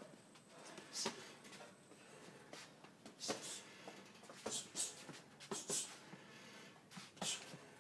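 Boxing gloves hitting during sparring, with sharp hissing exhales on the punches: about nine short hits, often in quick pairs.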